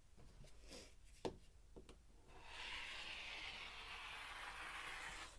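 A rotary cutter drawn through quilting fabric along a ruler on a cutting mat: a steady scraping hiss lasting about three seconds, starting a little after a single sharp click about a second in.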